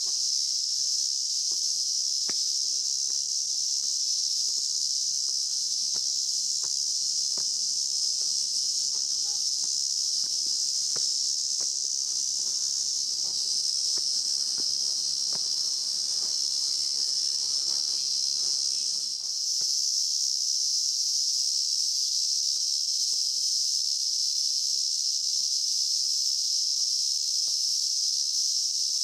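A dense chorus of cicadas shrilling steadily and high, dipping for a moment about two-thirds of the way through before carrying on.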